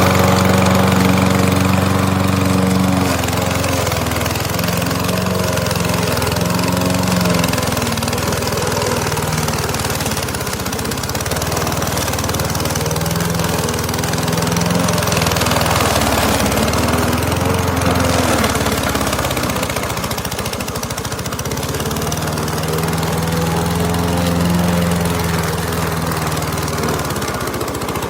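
Gas walk-behind lawn mower's 144cc single-cylinder OHV engine running steadily, its pitch sagging and recovering a few times through the stretch.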